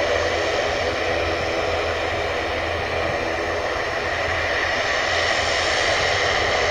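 Jet engines of a regional airliner at takeoff thrust as it climbs away: a steady, even rushing noise with faint whining tones through it.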